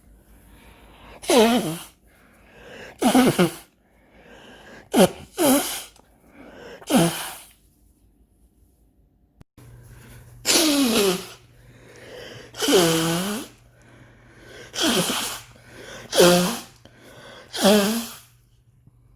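A person sneezing over and over, about ten loud sneezes, each with a falling voiced 'choo' and most led in by a short in-breath. There are two runs, with a pause in the middle, and a steady low hum under the second run.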